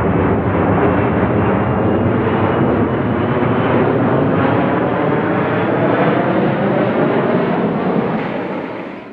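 Passenger jet engines at takeoff thrust: a loud, steady rumble with a faint high whine on top, fading away over the last second.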